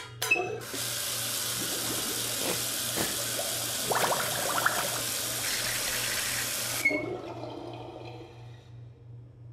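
A kitchen tap turned on with a short squeak, water running into a steel sink for about six seconds while hands wash under it, splashing louder about four seconds in, then the tap squeaks off.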